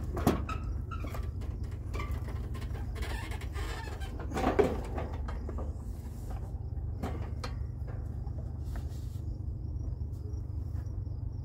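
Knocks and clunks of a Yard Machines riding mower being rolled over onto its side by hand, with the loudest sound about four and a half seconds in, over a steady low rumble. Faint cricket chirping comes in near the end.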